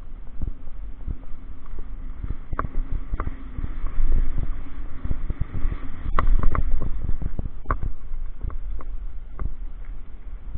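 Downhill mountain bike rattling down a loose gravel trail: a steady low rumble of wind and tyres on the mic, with many irregular clicks and knocks from the bike's chain and frame and from stones under the wheels, busiest about six seconds in.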